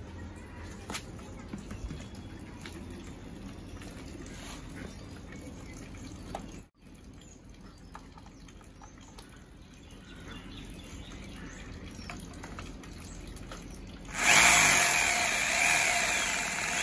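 Small handling clicks and rustles, then about two seconds before the end a corded rotary hammer drill is switched on and runs freely, loud and steady.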